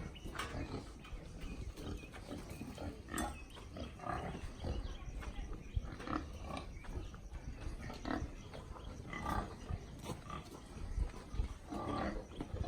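Pigs grunting in their pens: many short, irregular calls one after another, over a steady low rumble.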